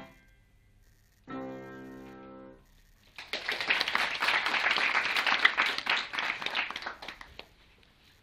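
Grand piano ending a piece: the final chord is held for about a second and then released. Then audience applause follows for about four seconds and dies away.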